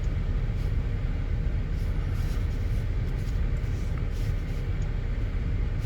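GMC Acadia 3.6 L V6 idling with a steady low rumble. The engine is misfiring (code P0300), a fault traced to the cylinder 5 ignition coil and spark plug.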